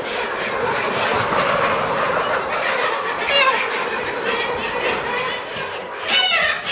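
A flock of chickens clucking and squawking together in a continuous din, with one sharper, louder squawk about three seconds in.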